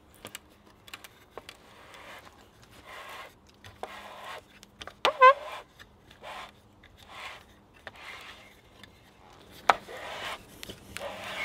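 Steel hand auger (a Scotch-eyed barrel auger) being turned and worked back out of a freshly bored hole through a wooden rail. Steel rasps and scrapes against wood in short strokes about once a second, with a couple of sharp clicks and a brief squeak about five seconds in.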